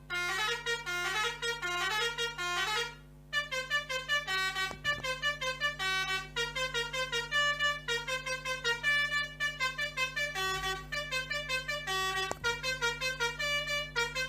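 Pianika (melodica) playing the 'telolet Basuri' bus-horn melody, a quick repeating run of short notes with a brief pause about three seconds in.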